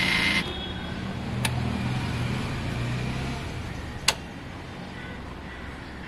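Suzuki Gixxer SF start attempt on a discharged battery. A brief buzzing 'krr', which the owner puts down to the bike's voltage converter, cuts off, then a low rumble fades. A light click comes about a second and a half in, and a sharper click about four seconds in as the dashboard display blanks.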